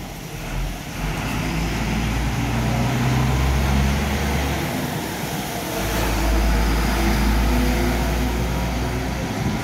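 Road traffic on a wet road: vehicle engines running past with a low rumble that swells about a second in and again about six seconds in, over a steady hiss.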